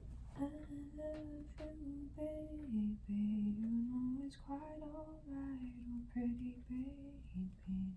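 A woman's voice singing a slow, wordless melody in long held notes that glide gently up and down, with no instruments.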